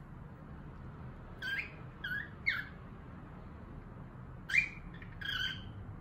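Cockatiel chirping: short whistled chirps that sweep in pitch, three in quick succession about a second and a half in, then two more about four and a half seconds in, over a steady low hum.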